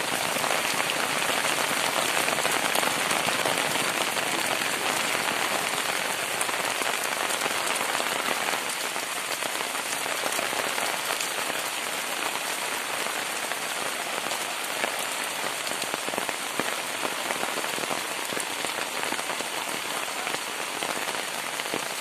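Heavy tropical downpour: a steady hiss of rain on the ground, leaves and clay-tile roofs, with water splashing down off the eaves. It eases slightly after the first several seconds.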